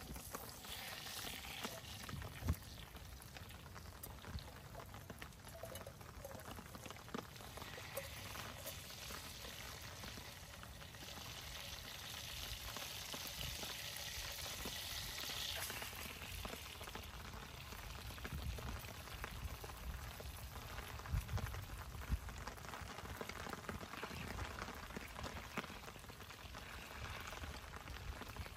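Fat sizzling and bubbling in a metal billy can over a campfire, a quiet hiss that swells from about 8 to 16 seconds in, with a few soft knocks.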